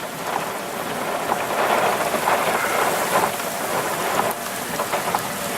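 Steady rain falling, with scattered drops pattering on a surface.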